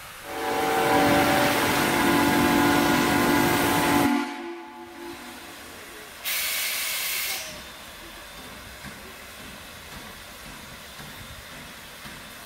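Baldwin-built SNCF 141 R Mikado steam locomotive blowing its whistle for about four seconds, several tones sounding together over loud steam hiss, cut off suddenly. About two seconds later comes a short, sharp hiss of released steam.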